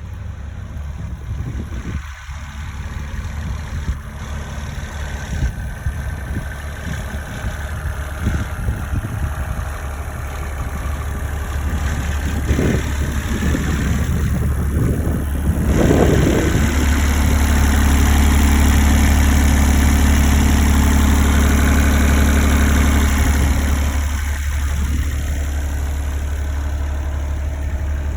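Cat 301.8 mini excavator's small diesel engine running steadily. It grows louder around the middle, holds at a higher steady level for several seconds, then eases back down near the end.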